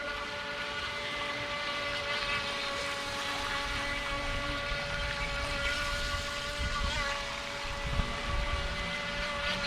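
Electric motor of a small radio-controlled boat running with a steady high whine, its pitch wavering briefly about seven seconds in.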